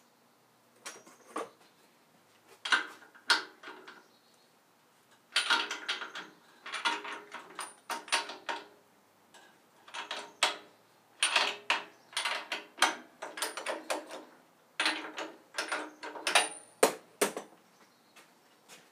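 Irregular metallic clicks and clinks from hand adjustments on a round-column milling machine with the spindle stopped: handles, locks and tools knocking on metal, coming in clusters, some clinks ringing briefly.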